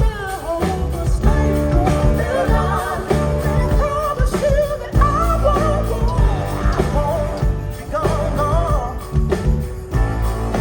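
A soul-rock band playing live, loud: drums, bass and guitar, with a bending sung melody carried over them.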